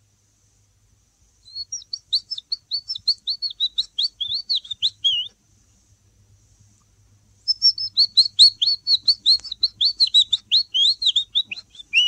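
Whistled imitation of a willow warbler's song: two phrases of quick, high notes that cascade downward in pitch, the second starting about halfway through.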